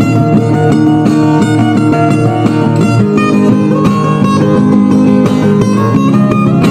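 Guitar picked in the northern Kulisusu style, a melody of quickly plucked notes over a steady bass line.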